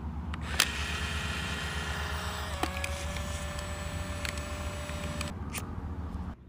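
Fujifilm Instax Mini instant camera: a sharp shutter click about half a second in, then the film-eject motor whirring for several seconds as the print is pushed out of the top slot. The whirring stops abruptly near the end.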